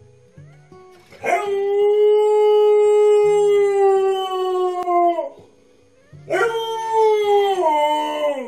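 Siberian husky howling twice while left home alone: a long howl of about four seconds that holds one pitch and drops at the end, then a shorter howl that falls in steps.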